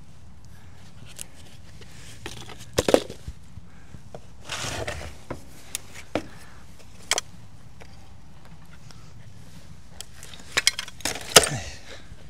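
Loose junk clattering and scraping as it is rummaged through and pulled out: a few sharp knocks about three seconds in, a brief scrape near five seconds, single clinks after that, and a cluster of clinks and knocks near the end.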